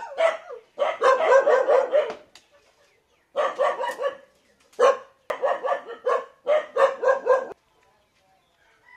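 A dog barking in rapid runs, several barks a second, five runs with short pauses between them, then falling quiet near the end.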